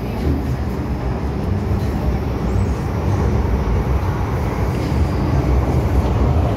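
MTR Island Line M-Train (a Metro-Cammell electric multiple unit) running through a tunnel, heard from inside the car: a steady low rumble of wheels and running gear that grows slowly louder.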